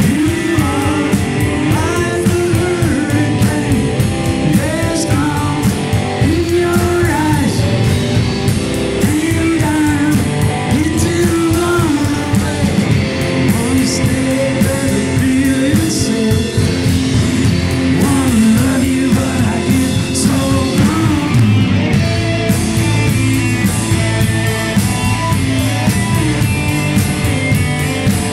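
Live rock band playing: electric guitars, bass guitar and drum kit. A lead melody bends up and down in pitch over the band until about 21 seconds in, and the band carries on after it stops.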